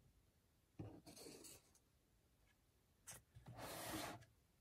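Faint rubbing on paper, twice: a short scuff about a second in and a longer one near the end, as a freshly glued cardstock label is pressed and smoothed down.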